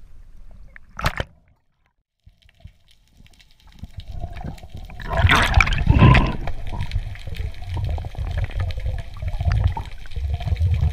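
A short splash about a second in as the camera goes under, then a brief silent gap, then water rushing and bubbling around an underwater camera as a freediver dives, loudest around five to six seconds in and then settling into a steady low rumbling swirl.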